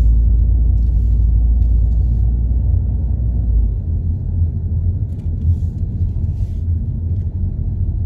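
Steady low rumble of a car driving slowly, heard from inside the car. It eases slightly about three and a half seconds in.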